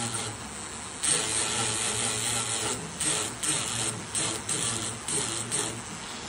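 A handheld electric engraving pen buzzing and scratching against a steel bandsaw blade in a string of short spurts as letters are cut into it.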